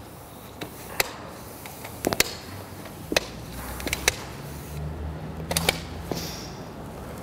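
Aluminium telescopic ladder (Hailo Profiline T400) being pulled out section by section, each rung clicking sharply as it locks into place, roughly once a second.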